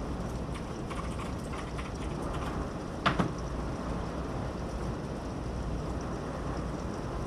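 Steady rain and wind noise of a thunderstorm, with scattered taps of drops in the first few seconds and one sharp knock about three seconds in.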